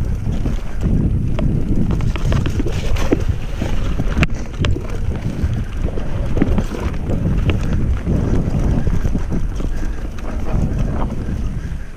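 Wind rushing over a GoPro's microphone as a mountain bike rides down a dirt singletrack, with a low rumble from the tyres and frequent short clicks and rattles from the bike over the rough ground.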